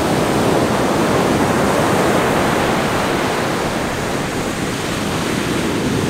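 Atlantic surf breaking and washing onto the beach: a loud, steady rush of waves that eases a little in the second half.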